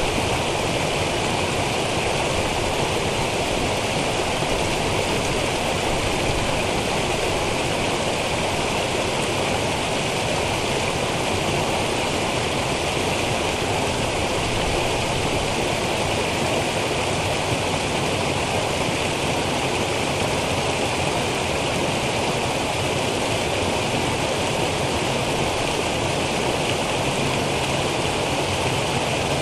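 Small woodland stream cascading over rocks in a series of little falls: a steady, even rush of water.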